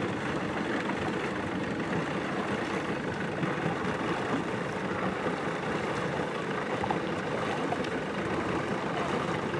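A boat's motor running steadily, with no distinct strokes or changes.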